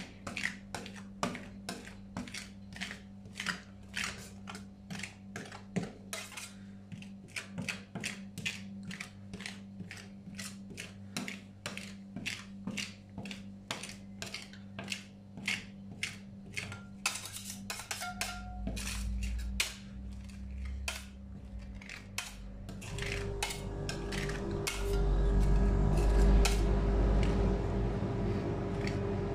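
Metal spatulas tapping quickly on a steel ice-cream cold plate, chopping chocolate ice cream into the plate, a few sharp clicks a second over a steady hum. About two-thirds of the way through the tapping thins out into spatulas spreading and scraping the ice cream, while the hum grows louder.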